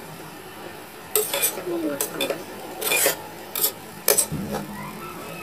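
Metal spoon stirring chopped winged beans in a metal cooking pot, clinking and scraping against the pot in irregular strokes that begin about a second in.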